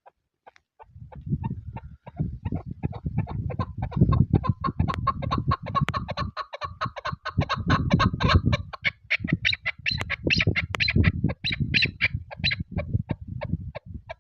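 Chukar partridge calling a long, fast series of clucking notes, several a second, the notes turning higher-pitched in the second half. Wind rumbles on the microphone underneath.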